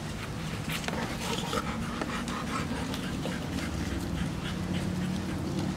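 Two dogs play-wrestling, one rolled on its back under the other: a run of short scuffling and mouthing sounds from the dogs, over a low steady hum.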